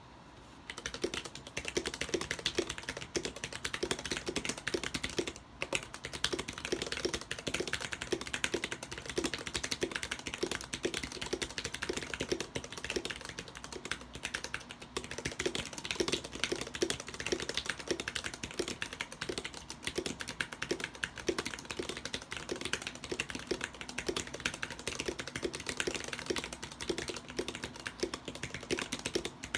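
Continuous fast typing on a mechanical keyboard with lubed vintage Cherry MX Black linear switches, a steel plate and thick PBT keycaps: a dense stream of keystrokes, with a brief pause about five and a half seconds in.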